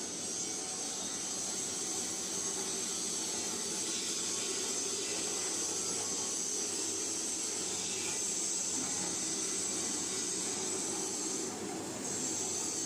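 Mini concrete mixer machine running, a steady mechanical noise that dips briefly near the end.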